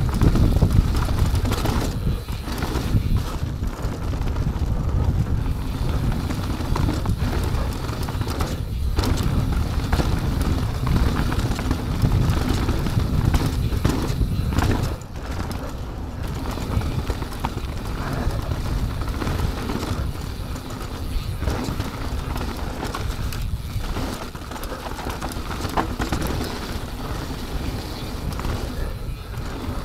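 Mountain bike riding down a dirt trail: wind buffeting the microphone and tyres rolling over the ground, with the bike rattling and knocking over bumps. The rushing eases a little about halfway through.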